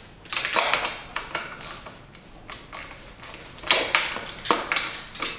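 Hand tool loosening a 10 mm bolt on an air compressor's plastic shroud: irregular bursts of sharp metallic clicking and rattling.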